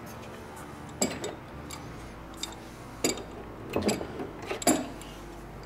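Sharp metallic clinks and knocks, about seven at uneven intervals, as a ball joint separator clamped on the upper ball joint is worked by hand in the wheel well.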